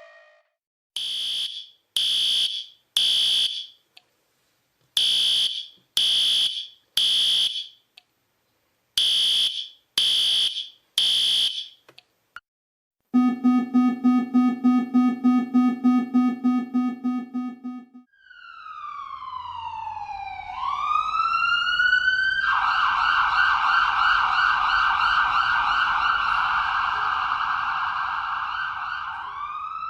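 A run of electronic alarm sound effects. First comes a high beep in groups of three, each group repeating about every four seconds. Next is a low buzzer pulsing about four times a second for about five seconds, and then an electronic siren that wails down and up before switching to a fast warble, rising again near the end.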